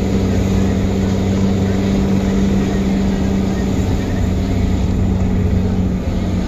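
A vehicle's engine running steadily with a constant low hum, over a dense rumble of travel noise.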